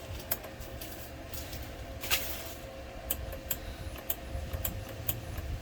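Scattered sharp clicks and small knocks of hands working a MIG welder's wire feeder, where the welding wire has jammed, over a faint steady hum.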